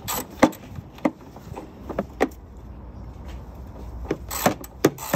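Irregular clicks and knocks of a hand ratchet and metal tools on the battery-box bolts in a car's engine bay, with a short scraping rustle of parts being handled near the end.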